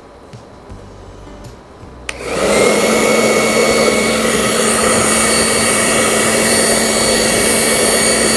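XL 2000 professional hair dryer switched on with a click about two seconds in, then running steadily: a loud rush of air over a constant motor hum.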